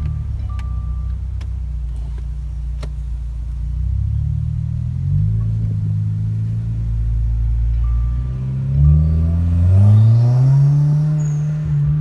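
2016 Subaru WRX's turbocharged flat-four engine and exhaust heard from inside the cabin while driving, pulling steadily at low revs. About eight and a half seconds in it rises in pitch as the car accelerates, then levels off near the end.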